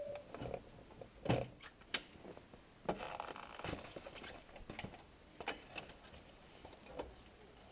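Irregular mechanical clicks and knocks, a handful of them spread out, from a man handling a homemade garden tractor's controls and climbing onto its seat, with the engine not running.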